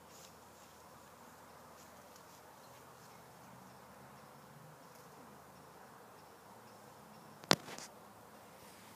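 Faint buzzing hum in the background, coming and going, with one sharp click about seven and a half seconds in.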